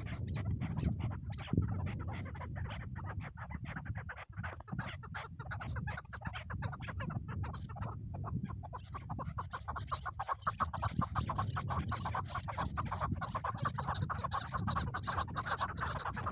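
Chukar partridge calling: a long, rapid series of clucking notes that grows denser and louder about ten seconds in, over a low rumble.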